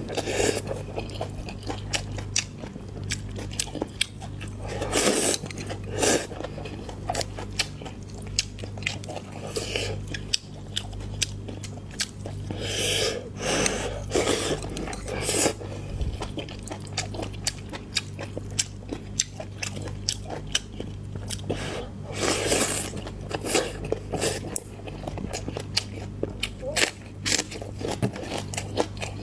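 Close-miked eating: chewing, biting and crunching, with many short clicks and louder bites at irregular moments, over a steady low hum.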